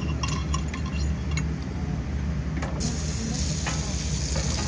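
Restaurant kitchen sounds: a steady low hum, a few light clinks of tableware in the first second or so, then a steady hiss that starts about three seconds in.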